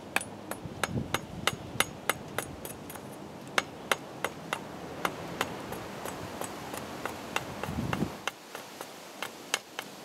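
Machete blade chopping a wooden stick on a chopping block in short, quick strokes: a run of sharp knocks about two to three a second, with brief pauses, as the point of a tent stake is cut.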